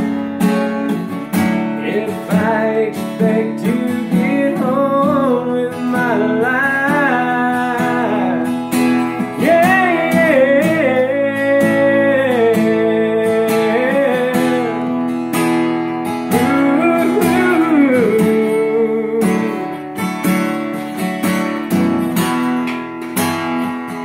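Acoustic guitar strummed steadily, with a man singing a melody over it through the middle stretch.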